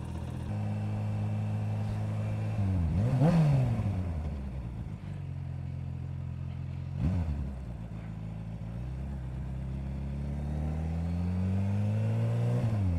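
Kawasaki H2 SX SE's supercharged inline-four pulling away and accelerating up through the gears. The engine note climbs and then drops sharply at each gearchange: about three seconds in, around seven seconds, and near the end. It is loudest at the first shift.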